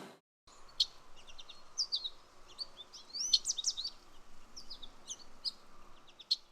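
Birds chirping, with many short, quick calls over a faint background hiss. The calls begin about half a second in, after a brief silence.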